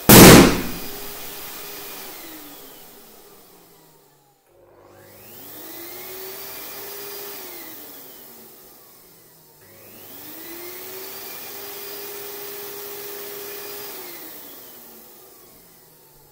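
A balloon bursts with a very loud bang right at the start while an electric balloon pump is running; the pump winds down, then twice starts up, rises to a steady whine for a few seconds and winds down again.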